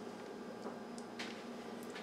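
Quiet room tone with a faint steady hum and two faint light ticks about a second in, small kitchen handling sounds.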